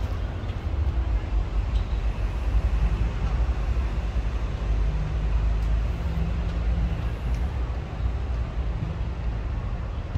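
Steady low outdoor rumble, with a faint low hum in the middle.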